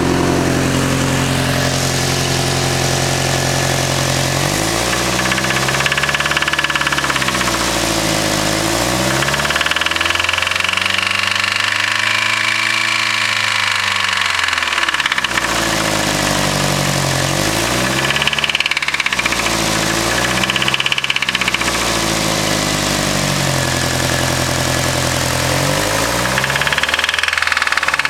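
Nissan SR20 four-cylinder engine idling, then revved up and let back down again and again, one rev held for several seconds, with knocking from a spun bearing.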